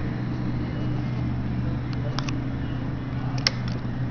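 Steady low background hum with a few light clicks about two seconds in and a sharper click near the end: the key and ignition switch of a 2006 Honda CBR600RR being turned on, with the engine not yet running.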